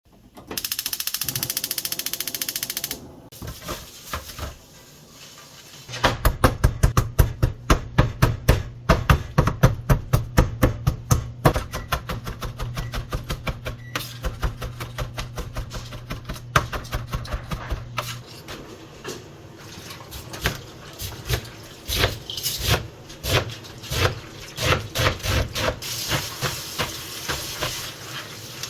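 Kitchen work sounds: a short burst of running water, then a long run of quick, sharp knocks over a steady low hum, turning more irregular after the hum stops.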